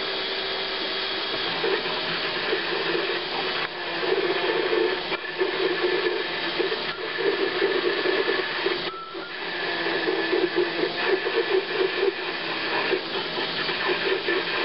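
Solar DC-powered metal lathe drilling into the end of a steel mower spindle with a twist drill in the tailstock: a steady motor hum with a fast rattling chatter from the cut, easing off briefly twice.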